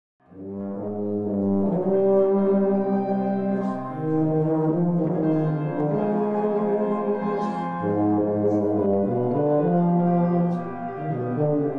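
Slow brass music: long held chords that change every second or two, fading in about half a second in.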